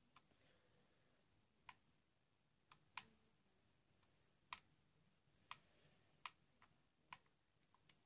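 About ten short, sharp clicks at uneven intervals, each standing out alone against near silence: buttons on a TV remote being pressed to skip through a streaming episode.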